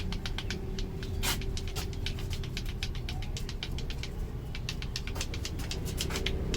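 A quick, irregular run of light taps and clicks, several a second, from a barber's head massage: hands or a wooden tool working on the scalp. A steady low rumble, like traffic, runs underneath.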